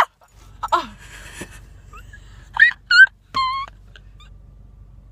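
A girl's high-pitched squeals: two short ones a little past halfway, then a longer wavering wail.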